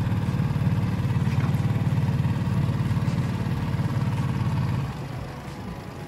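Small outboard motor running steadily, pushing an inflatable boat; its sound drops sharply about five seconds in.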